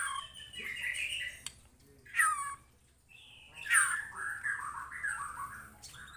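White-rumped shama singing. Loud down-slurred notes come at the start, about two seconds in and near four seconds, with quick warbling phrases between them.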